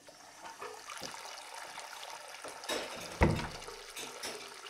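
Liquid running, with scattered small clicks and one heavy thump about three seconds in.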